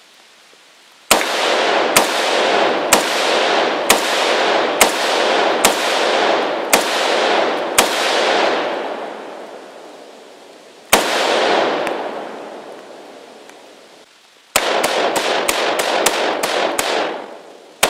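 Ruger Mini-14 semi-automatic rifle firing: about eight shots roughly a second apart, a single shot after a pause, then a fast string of about nine and one last shot at the end. Each report trails a long echo among the trees.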